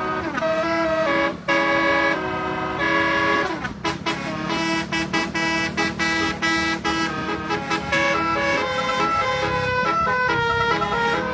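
Basuri telolet musical horn playing a dangdut melody: a fast run of loud horn notes, the pitch stepping up and down every fraction of a second.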